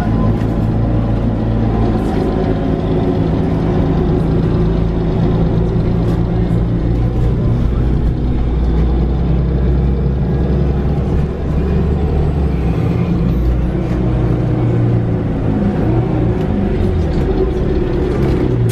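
Cabin of a Mercedes-Benz Citaro G articulated bus on the move: its compressed-natural-gas engine runs steadily through the ZF automatic gearbox, the engine note shifting a few times as the bus changes speed. Small rattling clicks come from the cabin fittings.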